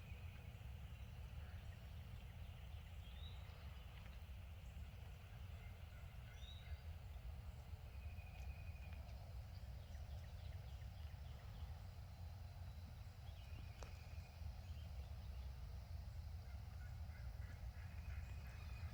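Faint, distant wild turkeys gobbling a few times over a steady low rumble of wind and outdoor noise.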